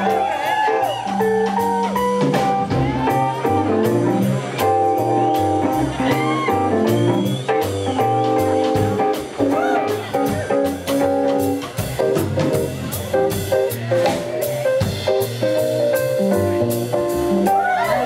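Live jazz band playing an instrumental passage, with upright bass and drum kit.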